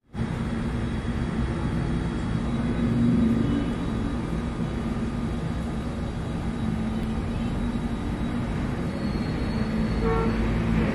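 Steady low rumble with a faint hum: continuous background noise, with a brief faint tone near the end.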